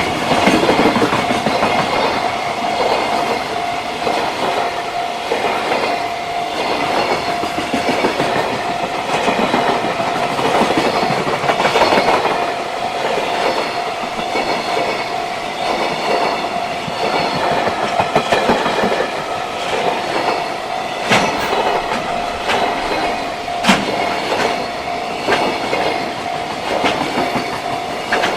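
JR Freight train running past at a level crossing, its wagons' wheels clattering over the rail joints with now and then a sharper clack. A steady tone throughout fits the crossing's warning bell sounding while the train passes.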